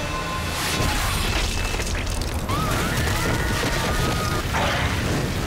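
Film sound effects of a violent storm: a continuous deep rumble with heavy booms, and a few short high gliding tones about halfway through.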